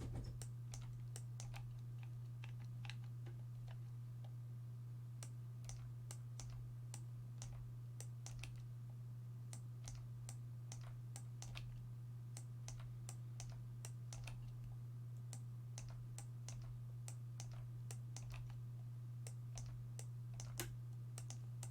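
Typing on a computer keyboard: scattered light key clicks at an irregular pace, over a steady low hum.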